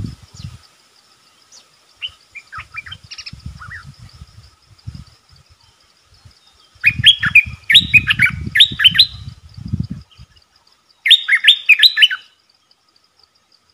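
A bulbul calling in loud bouts of quick, bright chirps, one around seven to ten seconds in and another around eleven to twelve seconds in, with softer scattered chirps before them. Dull low bumps come along with the calls, and a faint steady high tone sits underneath.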